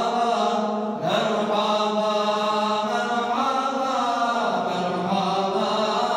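Group of young men singing an ilahija, a Bosnian Islamic devotional hymn, a cappella in held, chant-like phrases over a steady low note. The melody breaks briefly about a second in, then a new phrase begins.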